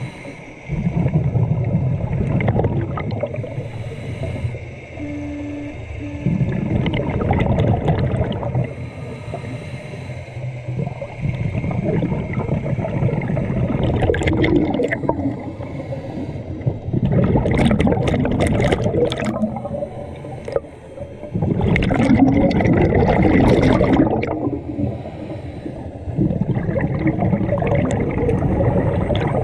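Scuba diver breathing through a regulator underwater: exhaled bubbles gurgle and rumble in repeated breaths a few seconds apart, with quieter pauses between.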